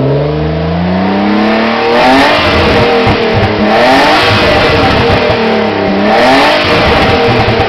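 A BMW car engine, warmed up and standing still, being revved hard. The pitch climbs to high revs over the first two seconds, holds there with blips, drops back, then rises again about six seconds in and falls near the end. The free revving is meant to clear carbon deposits from the engine.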